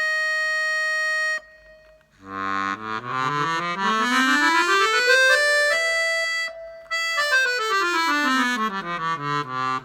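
Hohner Student 72 accordion, freshly repaired and retuned: a held note ends about a second and a half in, then after a short gap a quick scale climbs note by note, pauses briefly at the top and runs back down, with wonderful tuning.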